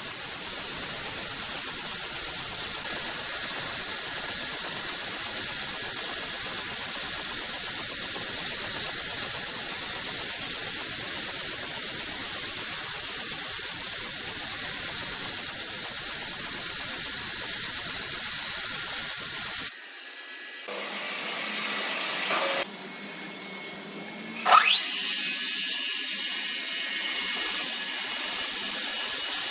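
Woodworking machinery running with a steady, high-pitched whirring hiss. About 20 seconds in the sound changes abruptly several times, and a short loud sound with a quickly rising pitch comes about 24 seconds in.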